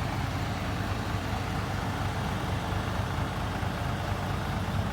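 Mitsubishi Fuso FN527 ten-wheel dump truck's turbo diesel engine idling steadily, heard through its 4-inch S-shaped exhaust pipe.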